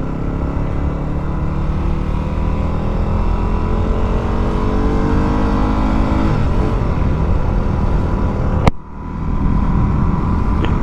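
Yamaha WR250R's 250 cc single-cylinder engine pulling up through the revs for about six seconds, then running on more evenly, over a steady low wind rumble. A single sharp click comes near the end.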